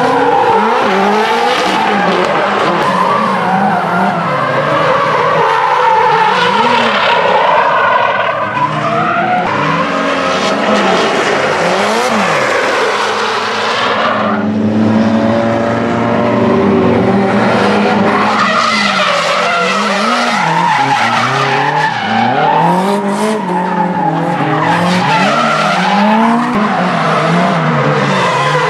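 Drift cars sliding sideways through a corner, their engines revving up and down over and over while the tyres squeal and skid.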